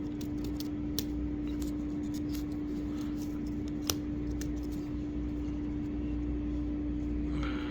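Fingers picking at and peeling the protective plastic film off a new GoPro camera: scattered small clicks and crinkles, a sharper one about a second in and another near four seconds, over a steady hum.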